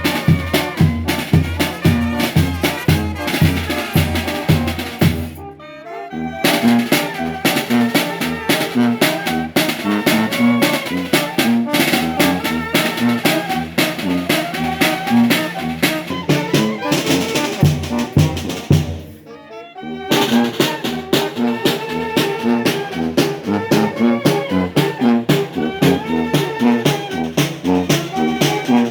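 Mexican banda, a brass band with drums, playing a tune to a steady beat. The music drops out briefly twice, about five and a half and nineteen seconds in, before the band comes back in.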